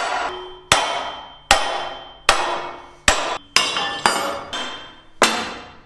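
A hammer striking a steel drift about eight times, roughly one blow a second, each blow ringing sharply and dying away. The blows are driving seized, rusted hinge pins out of the engine deck of a Type 69-II tank.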